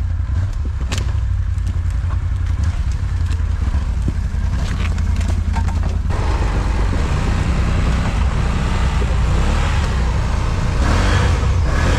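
ATV engine running under load, a steady heavy low drone that grows fuller and slightly louder about halfway through.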